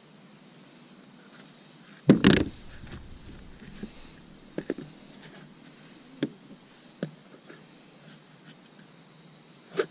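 Gear being handled in a plastic kayak's console and hatch: one loud knock with a dull thud about two seconds in, then a few lighter clicks and taps, and another knock near the end.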